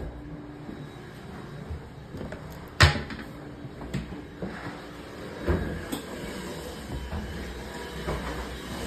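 A sharp knock about three seconds in, then a few softer knocks and thumps over a low steady rumble.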